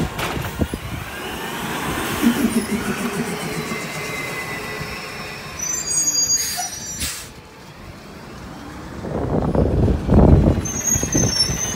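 Automated side-loader garbage truck driving off, its engine rising in pitch as it pulls away. It then comes back loud and pulls up again, with brief brake squeals and air-brake hisses about six seconds in and near the end.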